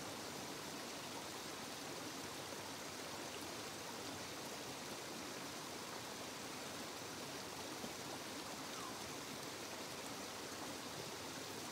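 Faint, steady rushing of running water.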